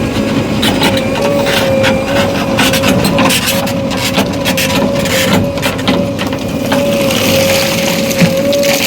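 JCB 3DX backhoe loader's diesel engine running with a steady high whine over a low rumble, with irregular cracks and clatters of soil and stones being worked.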